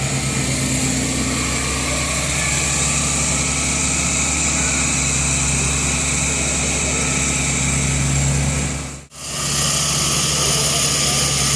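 An engine running steadily with a low hum and a broad hiss over it. The sound cuts out abruptly for a moment about nine seconds in, then carries on unchanged.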